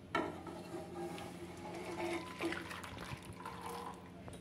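About a litre of milk poured in a steady splashing stream into a nonstick kadai, filling the pan.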